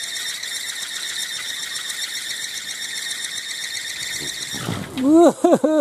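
A kolecer, a wooden wind propeller spinning on a tall bamboo pole, makes a steady shrill squealing whine with a rapid flutter. The wind is too light for its deep thumping gebrug. Near the end the whine cuts off and a separate pitched, wavering sound begins.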